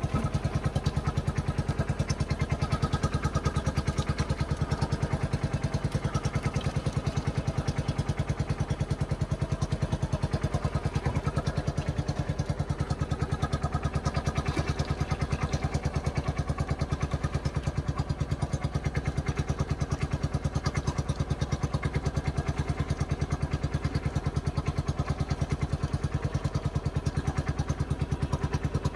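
A small engine running at a steady speed with an even, unbroken throb.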